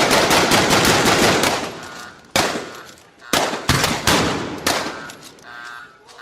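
Gunfight sound effect: a long burst of rapid automatic gunfire that fades out, then several separate gunshots, each with an echoing tail.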